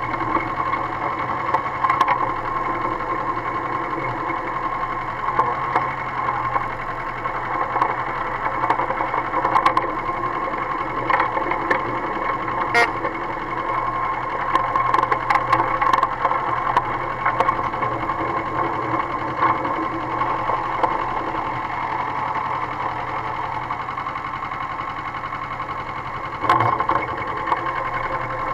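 Small engine of a narrow-gauge Lister rail truck running steadily under way along the track, with scattered sharp clicks and knocks; it gets louder about two seconds before the end.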